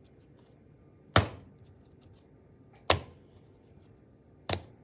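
A soft clay slab thrown down flat onto a work table three times, about a second and a half apart, each landing as a sharp slap; this is how the slab is stretched out thinner.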